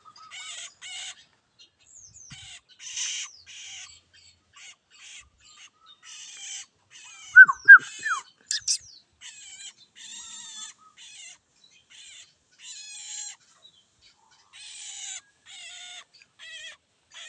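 Young long-tailed shrike (cendet) chattering in many short, scratchy bursts of high notes, with a few much louder sharp chirps that drop in pitch about halfway through.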